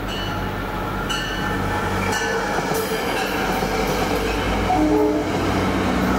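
Passenger test train running past at speed: coaches rumbling over the rails, with scattered short wheel squeals and clicks, under the steady low drone of the EMD GP40-3H diesel locomotive pushing at the rear. The sound grows slightly louder towards the end as the locomotive nears.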